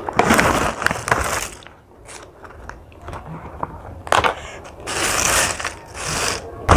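Crinkling plastic snack bag and potato chips rattling as they are tipped out onto a plate, in several crackly bursts, with quieter handling for a couple of seconds in the middle.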